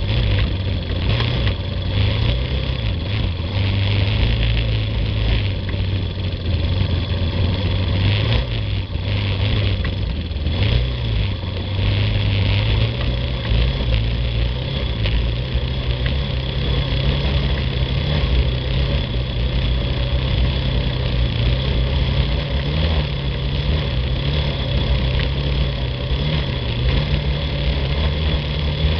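Yamaha quad (ATV) engine running at a low, steady pace over a rough dirt trail. Its pitch rises a little in the second half. Scattered knocks can be heard through the first ten seconds or so.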